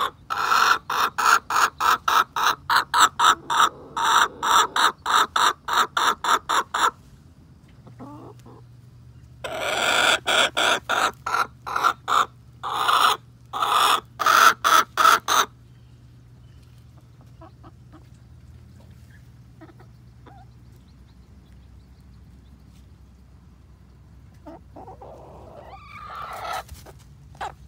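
Leghorn hen clucking in fast runs of about three to four clucks a second, twice for several seconds, then one short call near the end.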